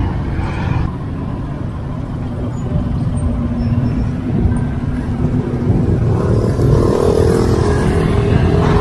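Road traffic close by: car and motorbike engines running around a busy junction, over a steady low rumble. A higher engine note comes in and grows a little louder in the last few seconds.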